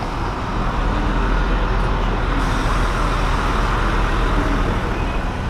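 Busy city street traffic: a steady rumble of car and truck engines and tyres passing at an intersection.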